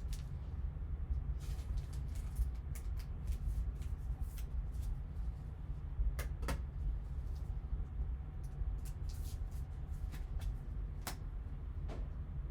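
Trading cards being handled, giving scattered soft clicks and rustles with a few sharper taps, over a steady low hum.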